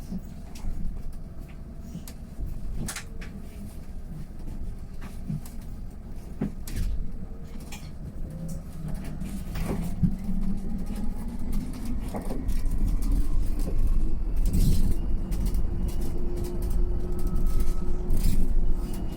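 Mercedes-Benz eCitaro G full-electric articulated bus pulling away and gathering speed, its electric drive whine rising slowly in pitch over a low running rumble, with scattered knocks and rattles. It grows louder from about halfway through.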